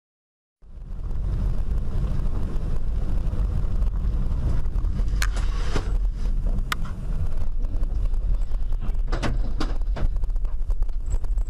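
Cabin sound of a moving car picked up by a dashcam: a steady low rumble of road and engine noise that starts abruptly, with several sharp knocks or clicks from about five seconds in.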